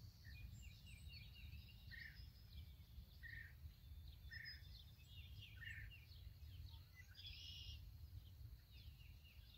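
Faint birds chirping and calling outdoors, with a louder buzzy call about seven seconds in, over a steady low rumble.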